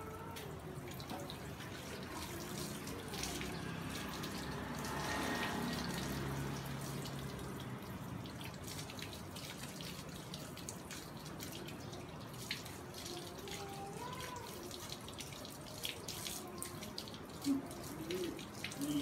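Water running from a garden hose and splashing onto a dog's coat and the tiled floor as the dog is rinsed, steady throughout, with a short louder sound near the end.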